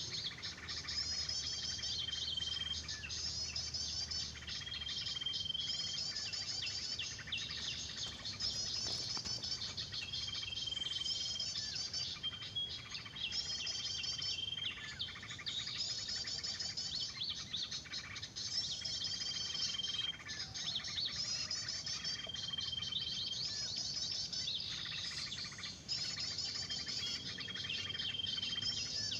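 Busy small-bird chatter, a lure recording of agitated songbird calls played through a speaker to draw birds to the lime. Rapid chirp bursts repeat in an even pattern every couple of seconds, each with a short, held whistle note.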